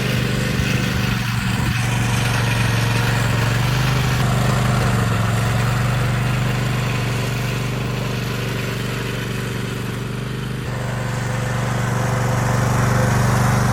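Riding lawn mower's small engine running steadily as it drives across ice, getting slightly quieter about two-thirds of the way in, then louder again.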